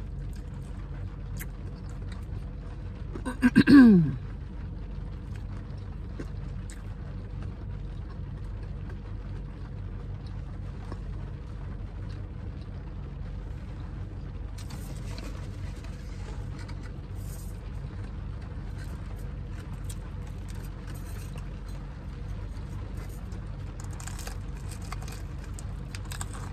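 A steady low hum of a car's interior runs throughout. About three seconds in a woman lets out a loud 'mmm' that falls in pitch, the loudest sound here. In the second half there are scattered small clicks and rustles of eating and handling fried chicken and its takeout packaging.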